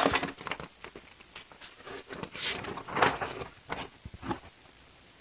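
Paper rustling and handling: pages of a plastic model kit's instruction booklet being turned, in a few short rustles with light clicks, loudest at the start and about two and a half to three seconds in.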